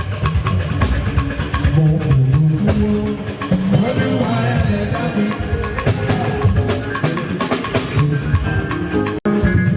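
Music with a drum-kit beat and percussion, briefly cutting out to silence for a split second near the end.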